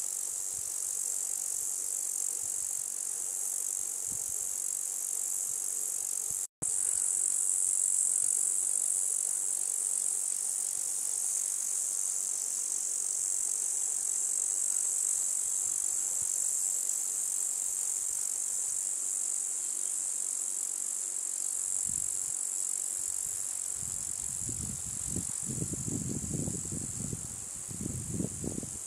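Steady, high-pitched drone of a chorus of insects, broken very briefly about six and a half seconds in. Low rumbles join it in the last few seconds.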